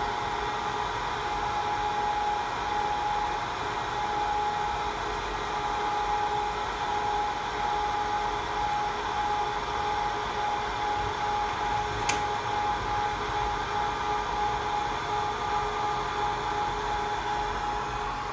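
Automatic BGA IC mounting machine running its heating cycle, stepping through preset temperature stages to lift an IC off the board: its hot-air blower gives a steady whir with a constant whine. A single sharp tick comes about twelve seconds in.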